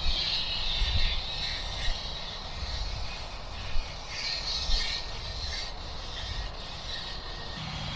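Steady interstate highway traffic noise: a hiss of tyres that swells and fades as vehicles pass, over an uneven low rumble.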